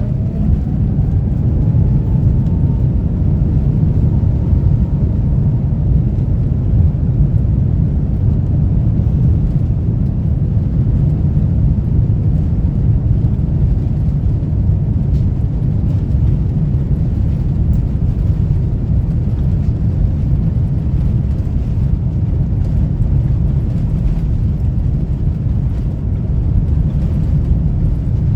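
Cabin noise of an Airbus A350-900 with its Rolls-Royce Trent XWB engines running: a loud, steady low rumble. A faint whine rises in pitch over the first few seconds.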